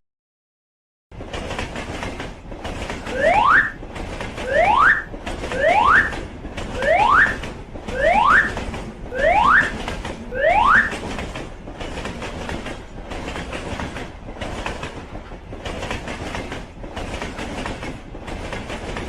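Train sound effect: rail running noise that starts about a second in and swells about once a second like wheels clattering over joints. Over its first half come seven short rising whoops, one with each swell.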